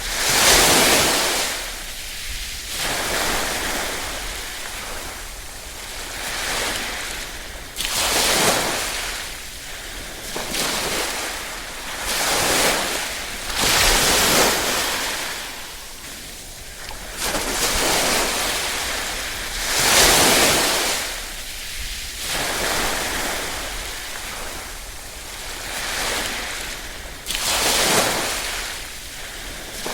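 Small ripple waves washing in on a shore, each wave swelling to a hissing wash and then drawing back, about every six seconds.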